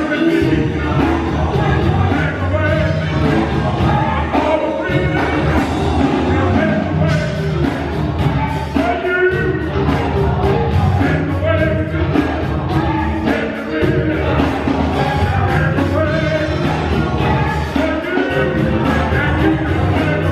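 Gospel choir singing with a live band, the voices carried over a steady beat from a drum kit and a strong bass line.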